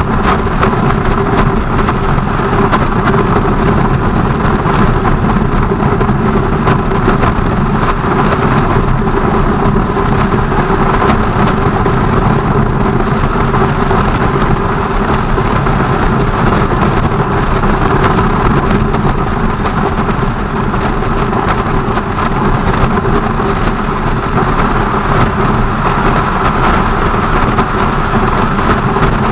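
BMW R 1200 GS motorcycle's boxer-twin engine running steadily, with no rise or fall in pitch, over a constant noisy hiss.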